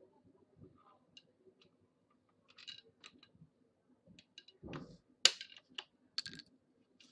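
Irregular light clicks and taps, with a dull thud about four and a half seconds in and a sharp, louder click just after it.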